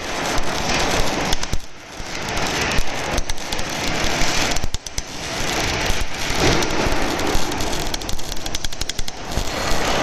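Electric welding arc, run by a welding carriage, crackling and sputtering steadily. It drops out briefly about two seconds and five seconds in.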